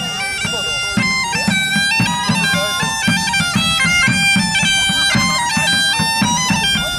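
Bagpipes playing a melody that steps from note to note over one steady drone note, loud.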